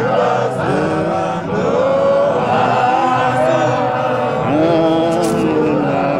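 Voices singing a gospel hymn in the chant-like style of the Johane Marange apostolic church, with melodic lines that glide and hold without a break.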